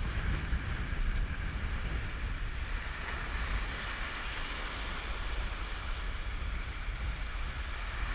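Wind buffeting the microphone over a steady wash of surf and sea water.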